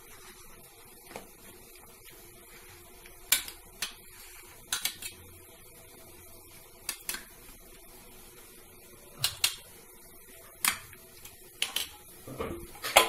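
A utensil clinking and knocking against a tiffin box as okra and spices are stirred together inside it: about a dozen short, sharp clinks at irregular intervals, with a cluster near the end.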